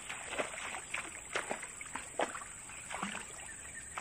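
Snakehead fish splashing and thrashing at the water surface, a series of irregular short splashes.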